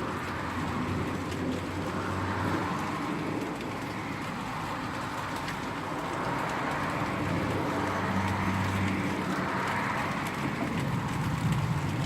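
Steady outdoor hiss and low hum that swells and fades about three times, like road vehicles passing one after another.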